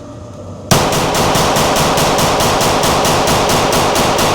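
A .22 firearm fired in rapid succession, about six shots a second, starting abruptly about a second in and running on as one dense stream of cracks.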